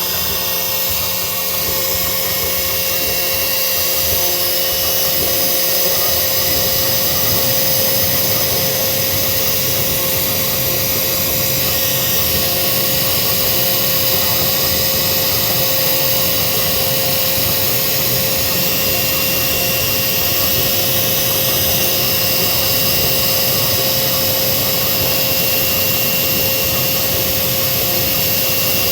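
CNC router running steadily while engraving text: a continuous high whine and hiss from the spindle and cutter, with a steady tone under it.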